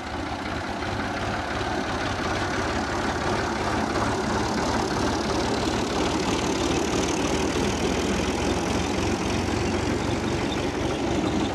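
Diesel tractor engine running steadily under load, pulling a stalled tractor on tow, growing louder over the first few seconds as it comes past.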